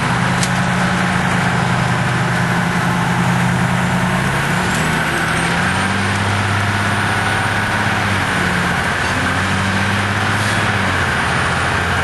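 Pierce fire engine's Detroit Diesel engine running under way, heard from inside the cab, with road and cab noise. The engine note changes pitch a few times, stepping down about four to six seconds in and back up near the end.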